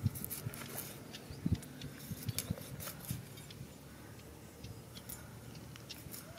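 A large knife scraping and flicking the skin off a small piece of ginger, heard as irregular small scrapes and clicks, with a few dull knocks in the first half.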